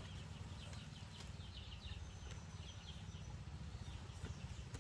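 Birds chirping and peeping faintly in a quick, busy patter over a steady low rumble.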